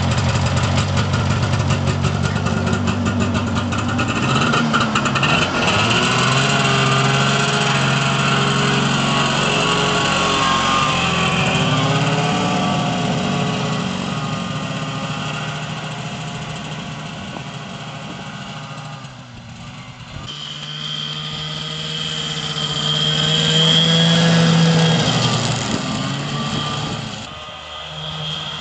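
1989 Arctic Cat Jag 340 snowmobile's two-stroke twin engine running just after a cold start, its pitch rising and falling with the throttle as the sled is ridden away and fades. After a break it comes back louder as the sled passes close by, then fades again near the end.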